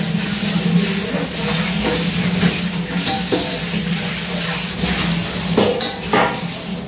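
Metal kitchenware being handled: a stainless steel bowl and pots clink and knock a few times over a steady hiss and a low, even hum.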